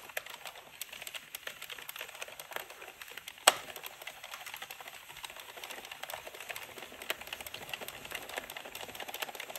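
Addi King circular knitting machine turning, its plastic needles clicking rapidly and irregularly as they ride up and down through the carriage, with one sharper click about three and a half seconds in.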